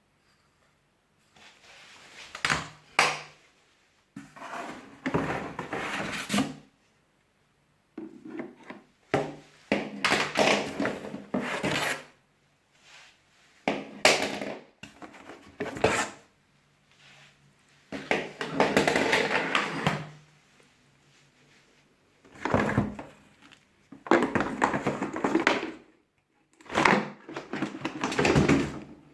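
Rustling, scraping and clunking of the wet and dry vacuum cleaner's parts and packaging being handled, in short irregular bursts with sharp knocks between pauses.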